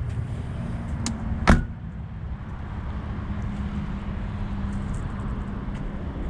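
A car's rear door shut with a single sharp thud about a second and a half in, a fainter click just before it, over a steady low rumble and faint hum.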